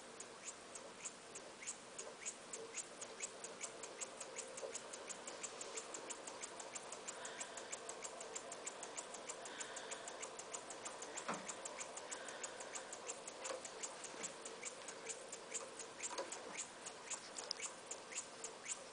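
McCabe Runner single-acting model air engine running slowly on compressed air, ticking steadily at about four ticks a second, with a faint hiss now and then.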